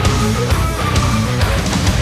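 Background heavy rock music with distorted electric guitar and a steady beat.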